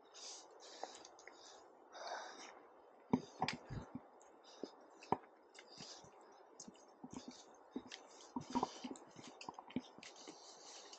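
Footsteps on a stony, leaf-covered trail, with irregular sharp clicks and knocks from about three seconds in, and breathing close to the microphone.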